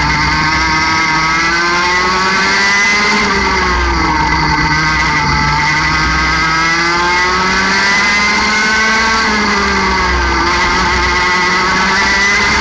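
A 60cc two-stroke kart engine heard up close from the kart itself, running at high revs under racing load. Its pitch climbs on the straights and drops sharply twice as the driver lifts for corners, about three seconds in and again about ten seconds in.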